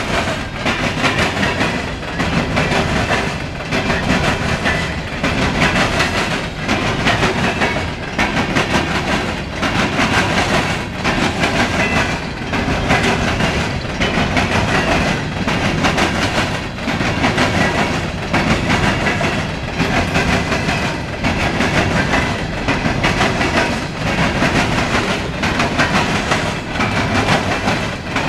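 Loaded coal train's open-top steel coal cars rolling past, their wheels clacking over rail joints in a steady repeating clickety-clack, about one group of clicks every two seconds over a continuous rumble.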